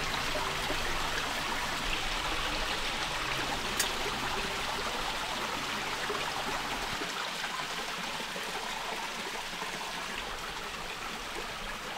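Steady rush of a flowing stream. A faint low hum sits under it for the first half, and there is one small click about four seconds in.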